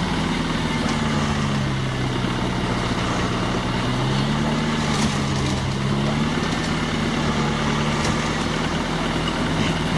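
Off-road 4x4's engine running steadily. Its note sags briefly a little before the middle and then picks back up. A couple of faint clicks can be heard over it.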